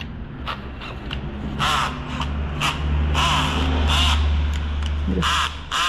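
A bird calling repeatedly: short, harsh caws about once a second, over a steady low hum.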